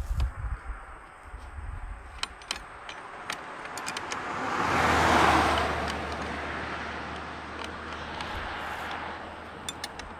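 A car driving past, its noise rising, loudest about five seconds in, then fading away. Scattered light metallic clicks and clinks of a wrench working on the old mailbox anchor's bolts.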